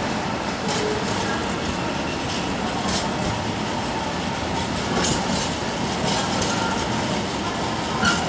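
Container flat wagons of a freight train rolling past at close range: a steady rumble of wheels on rail, with sharp wheel clicks now and then.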